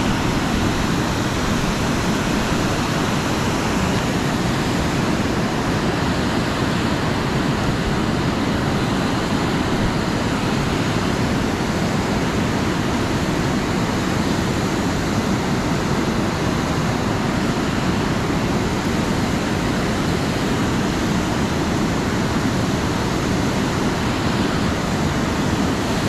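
Fast-flowing river water rushing steadily below a power dam's outflow.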